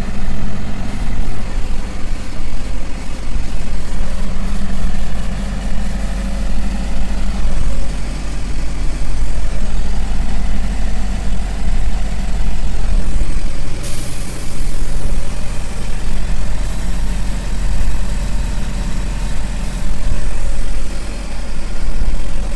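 Kirloskar (KOEL) 82.5 kVA silent diesel generator running steadily with a deep hum, under electrical load from a water-bucket load bank. A burst of hiss lasts about three seconds, a little past halfway.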